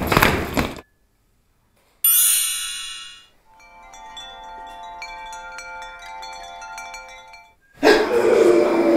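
Chime sound effect: a bright chime rings out about two seconds in and fades, followed by a softer, sustained shimmering chime with faint twinkles. Louder noise and music cut back in near the end.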